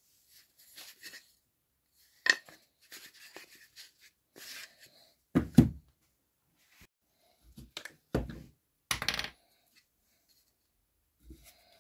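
Small thin fiberboard squares being handled and set down on a plastic-covered workbench: a few sharp clacks and thumps, the loudest about halfway through, with the plastic film rustling in between.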